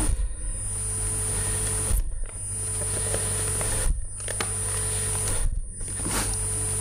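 Steady electrical hum and hiss with a thin high whine, the background noise of a microphone and sound system. Four brief knocks come about every two seconds, and after each one the hiss briefly drops out.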